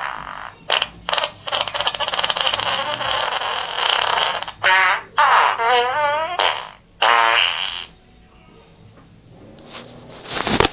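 A run of farts: a long rasping stretch broken by short gaps, then three fluttering farts with a rapidly wobbling pitch. After a quieter spell comes one short, loud fart at the very end.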